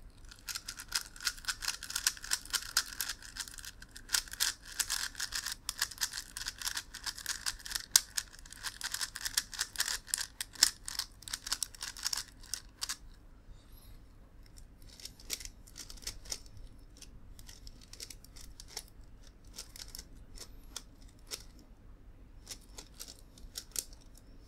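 Plastic megaminx puzzle being turned fast, its layers clicking in a dense clatter for about thirteen seconds, then slower, scattered clicks of single turns.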